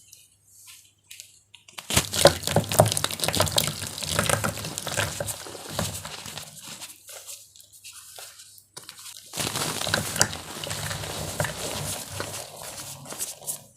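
Crumbly gym chalk and cornstarch being crushed wet: dense crackling and crunching mixed with watery sounds, in two long spells of about five and four seconds.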